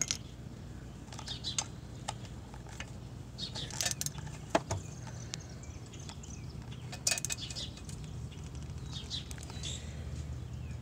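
Metal socket wrench working a bolt: scattered light metallic clicks and clinks, with one sharper click about halfway through, over a low steady hum.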